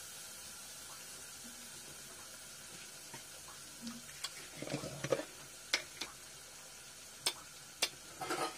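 Spice paste of garlic, coconut, curry leaves and ginger frying in hot oil in an aluminium pot, sizzling quietly. From about four seconds in, there are scattered sharp pops and crackles.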